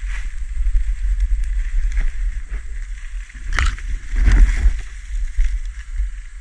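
Footsteps crunching through dry grass, reeds and leaf litter, with stalks brushing past a body-worn camera, over a steady low rumble on the microphone. Louder crackles come about three and a half seconds in and again just after four seconds.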